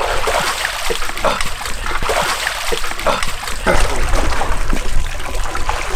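Water splashing and sloshing as a man climbs out of a chest-deep water tank, with water streaming off his soaked clothes and gear.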